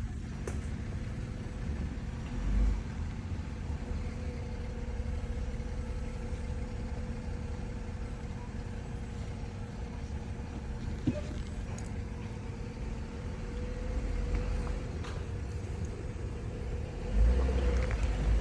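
Car driving: a steady low rumble of engine and road noise with a faint steady hum, swelling briefly louder a couple of times.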